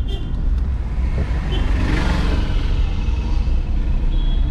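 Steady low rumble of a moving road vehicle, with another vehicle swelling past about two seconds in, and a short high thin tone near the end.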